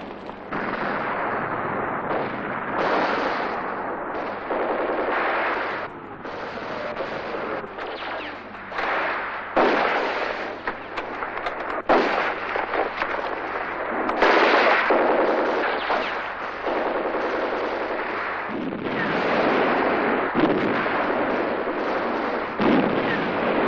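Battle gunfire: machine-gun and rifle fire running on as a continuous din, with repeated sharp, louder shots standing out through it.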